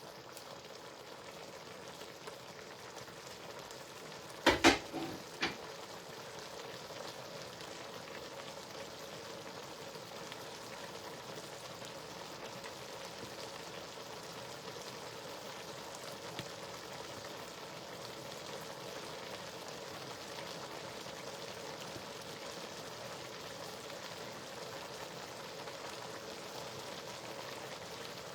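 Food frying with a steady sizzle, broken about four and a half seconds in by a few sharp knocks.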